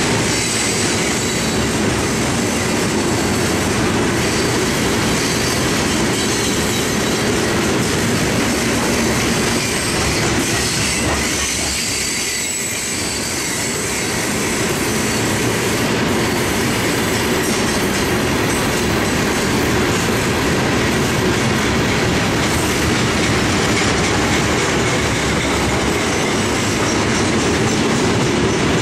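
Providence and Worcester freight train's open-top hopper cars rolling steadily past, loud steel wheels on the rails with high squealing tones over the rumble.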